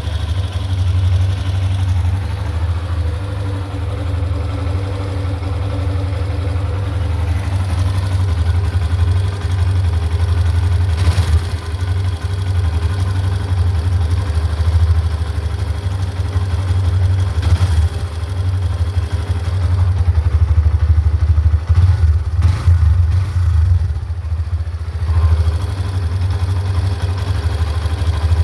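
Hero Xtreme 125R's single-cylinder engine running steadily at idle, with a few sharp knocks along the way. The owner reports it sounding like "khiit khit khit" and takes it for an engine noise problem at 619 km.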